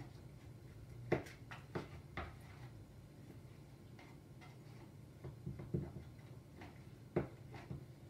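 Light, scattered taps and knocks of a cardboard milk carton being handled on a kitchen counter while peanut butter is smeared onto the inside floor of the carton.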